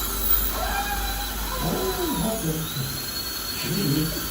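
Dental drill whining at a steady high pitch that steps up slightly about two-thirds of the way through, with a person's voice heard briefly over it.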